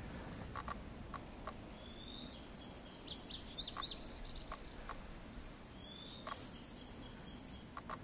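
Male Lazuli Bunting singing: two songs, each a quick run of high, sliding notes, the first about two seconds in and the second about six seconds in.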